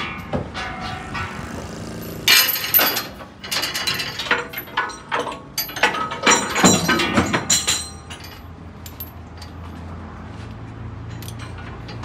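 Heavy steel tie-down chain and fittings clanking and rattling as a tracked excavator is secured on a self-loader truck's steel deck, in two clattering clusters. A steady low engine hum runs under the last few seconds.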